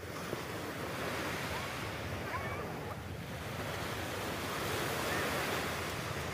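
Small sea waves breaking and washing up a sandy beach, a steady surf hiss.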